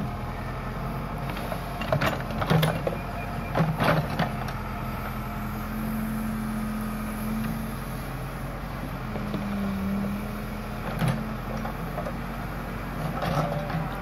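Case backhoe loader's diesel engine running steadily under hydraulic work as the backhoe arm swings and reaches into the ditch. A higher steady tone swells over the engine twice in the middle, and sharp metal clanks from the bucket and boom linkage come in a cluster about two to four seconds in and again near the end.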